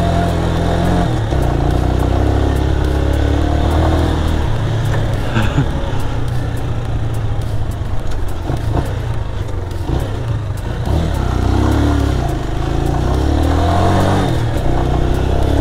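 Spark SP200R-28 motorcycle's 198 cc four-stroke engine pulling the bike along a rough dirt trail, its revs rising and falling with the throttle. Frequent small knocks and clatter come through over the engine note.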